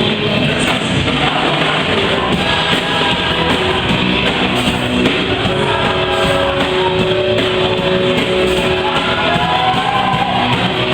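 Live worship band playing an upbeat song, with electric guitar and singing over it.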